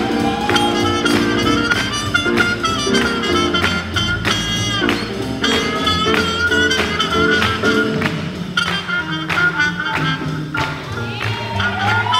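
Live jazz band playing an up-tempo swing tune, with a wind instrument carrying the melody over a steady beat.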